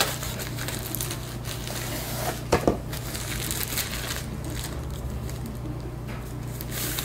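Cardboard box being handled and opened, and the plastic bag of detergent sheets inside crinkling and rustling as it is pulled out and opened, with a few sharp clicks about two and a half seconds in. A steady low hum runs underneath.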